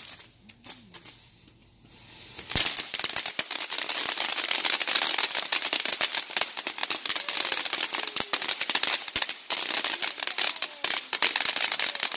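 Small consumer firework going off: a sharp pop about two and a half seconds in, then dense, rapid crackling of many small pops that carries on without a break.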